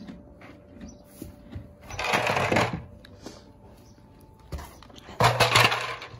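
Horse treat ball, a hollow plastic ball with treats inside, rattling as a horse noses and pushes it about on straw bedding. Two longer rattling spells about two and five seconds in, with light clicks between.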